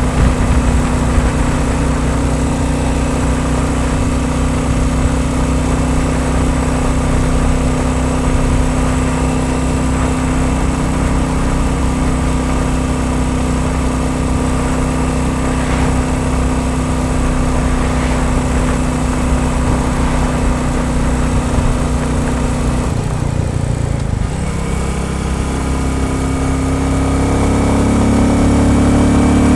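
Royal Enfield Bullet 350's single-cylinder four-stroke engine running at a steady pitch. The revs drop a little over halfway through, then climb steadily near the end as it accelerates.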